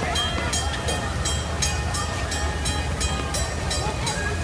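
Small steam locomotive working slowly past the platform, its exhaust chuffing in an even beat of about four puffs a second over a low rumble from the running gear.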